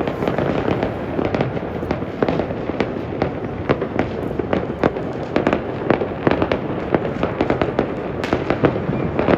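New Year's Eve fireworks and firecrackers going off in a dense, continuous barrage: many sharp bangs and crackles, several a second, over a constant background of more distant bursts.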